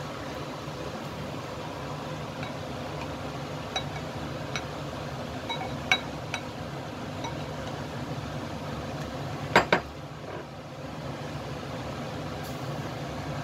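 A saucepan of kolak boiling on a gas burner: a steady hiss of flame and bubbling, with a few light clinks and a sharper double clink about nine and a half seconds in.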